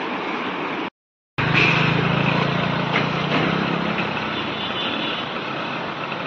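Steady rush of floodwater, broken by a short silent gap about a second in; after the gap the rushing goes on with a steady low engine hum under it for a couple of seconds.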